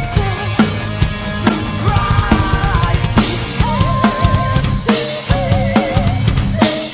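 Full drum kit played along to a symphonic metal recording. Rapid bass-drum strokes run under regular snare hits and cymbals. Behind the drums the band's music carries held melody notes with a wavering vibrato.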